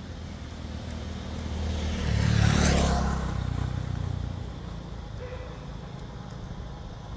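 A motor vehicle passing by on the road, its sound swelling to a peak about two and a half seconds in and then fading away.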